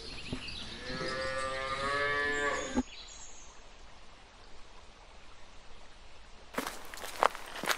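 A cow mooing: one long, wavering moo that cuts off suddenly about three seconds in. A few sharp taps follow near the end.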